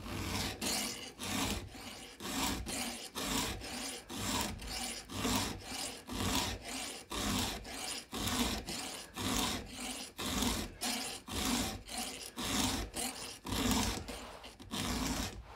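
A round chainsaw file rasping across the cutter teeth of a saw chain, in even strokes at about two a second. It is a touch-up sharpening of cutters dulled by a stump cut.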